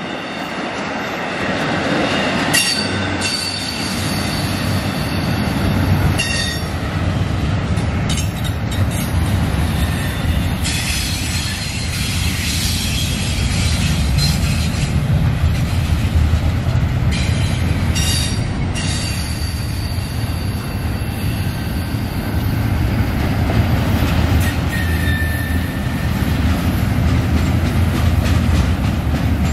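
Double-stack intermodal freight cars rolling past on steel wheels: a steady low rumble of wheels on rail. Thin high wheel squeal comes and goes over it, and scattered sharp clacks ring out as the cars pass.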